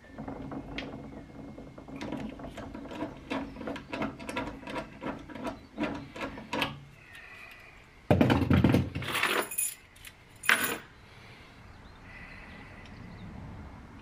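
Small metal parts of a gate lock and its screws clicking and clinking as they are handled and fitted against a steel door frame, a quick run of light taps and rattles. About eight seconds in comes a loud harsh burst of noise lasting over a second, and a shorter one follows about two seconds later.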